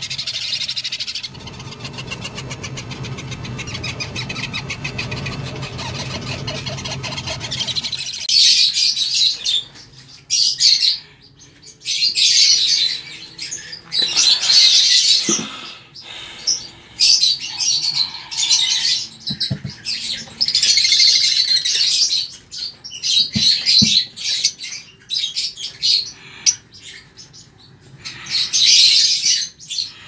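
For about the first eight seconds a parrot chick gives a continuous, rapidly pulsing begging call. After that a small group of lovebirds calls in loud, high-pitched bursts of chirps and squawks, with short gaps between them.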